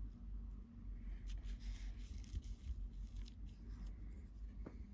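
Small paintbrush scrubbing against the plastic body of an HO-scale model locomotive: faint scratchy brushing strokes from about a second in until about three and a half seconds, over a low steady hum.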